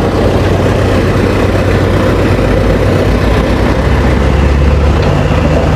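A motor running steadily: a low hum under a loud, even hiss, the hum growing a little heavier past the middle.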